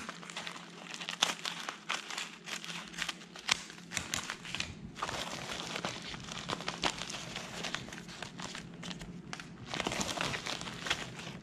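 Packaging crinkling and rustling as a parcel is unwrapped by hand, with dense, irregular sharp crackles throughout.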